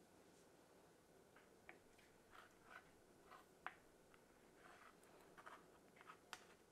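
A long knife trimming the edges of a sheet of puff pastry, heard only as a scatter of faint clicks and short scrapes as the blade meets the worktop.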